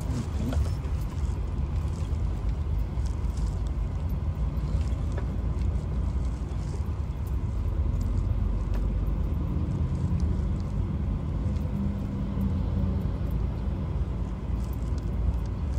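Steady low rumble of a moving truck's engine and road noise heard from inside the cab, with a faint low drone rising in the middle.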